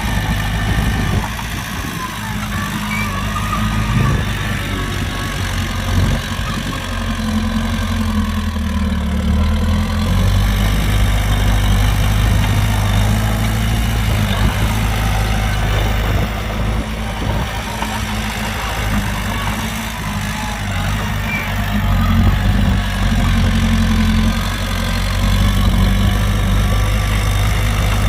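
Heavy diesel engine running steadily, its note and load shifting a few times.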